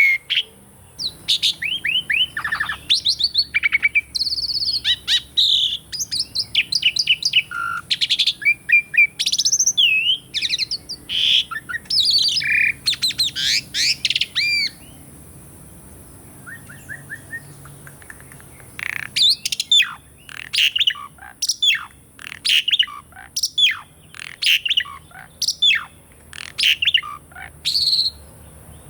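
Asian pied starling (jalak suren) singing: a fast run of varied whistles and chattering notes, a lull of about four seconds in the middle, then a string of sharp, short calls.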